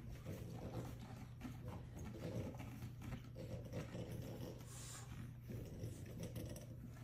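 Faint, scattered noises of French bulldog puppies play-wrestling, over a low steady hum.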